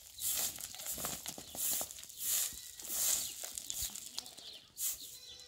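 Short-handled straw broom sweeping bare dirt and gravel ground, a brisk swish with each stroke, about one stroke every two-thirds of a second.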